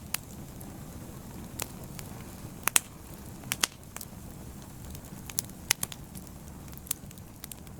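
A fire crackling: a steady low rumble of flame with sharp pops at irregular intervals, the loudest a quick pair about three seconds in.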